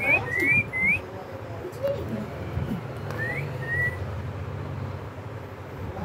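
Indian ringneck parakeet giving short rising whistles: a quick run of four in the first second, then two more about three seconds in.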